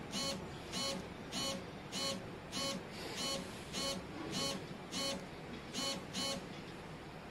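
JioPhone feature phone ringing with an incoming call: a short electronic ringtone chirp repeats nearly twice a second. It stops about six and a half seconds in as the call ends.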